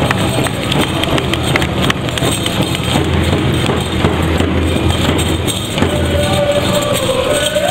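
Powwow drum group playing a dance song: a steady drumbeat with singers' voices, a high held singing line coming in about six seconds in.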